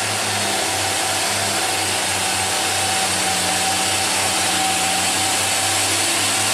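Diesel engine of an Isuzu tanker truck running at low revs as it crawls over a rutted dirt road, steady and growing slightly louder, with a thin steady whine alongside.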